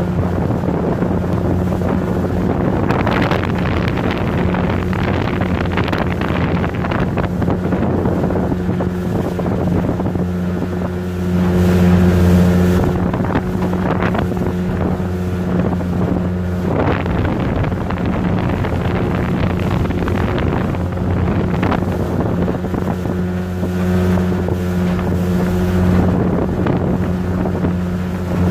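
Motorboat engine running steadily underway, a constant low hum with water and wind noise on the microphone; it swells louder for a couple of seconds about twelve seconds in.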